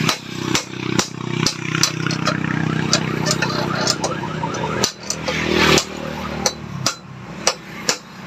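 Sharp metal taps, roughly one or two a second, of a hammer knocking on a Honda XRM125's steering stem to drive out its ball-race bearing. Under them a steady engine hum runs in the background and drops away about five seconds in.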